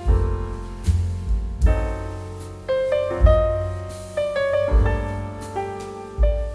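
Background music led by piano: chords and notes struck about once a second and left to ring and die away, over a low bass line.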